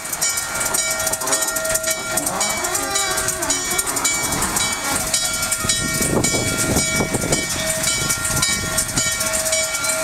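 Norfolk & Western J-class 4-8-4 steam locomotive 611 heard at close range: a repeated ringing at a steady pitch over the locomotive's noise, with a deeper rumble building from about four seconds in and easing off near the end.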